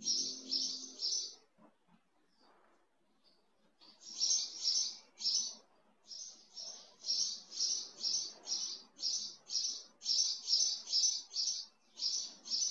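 A small bird chirping: runs of short, high, evenly spaced chirps, about three a second, with a pause of a couple of seconds near the start. Faint background music fades out in the first second or so.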